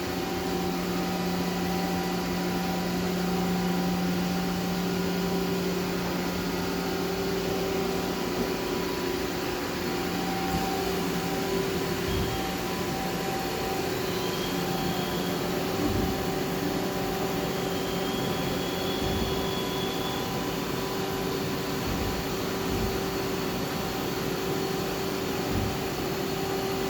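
Nakamura-Tome WY-100 CNC turning center running under power: a steady machine hum with several held tones, the lowest shifting slightly about ten seconds in, and a few soft knocks.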